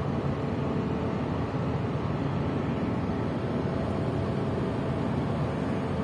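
Steady low rumble of the ferry Blue Horizon's engines and machinery running as the ship gets under way, with faint steady hums in it.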